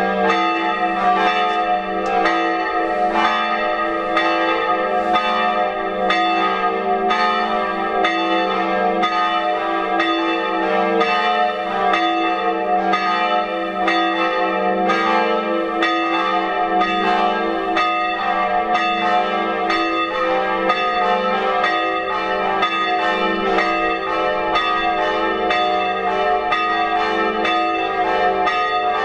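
Full peal of church bells, the bells of the church's Protestant and Catholic congregations ringing together. Many overlapping strokes run on without a break, their ringing tones held under each new stroke.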